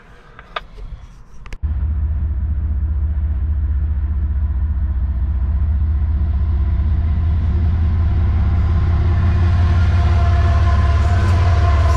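Two GE ES44AH diesel locomotives hauling a CSX freight train: a steady deep engine rumble that starts suddenly about a second and a half in, with higher tones building as the locomotives draw near and pass.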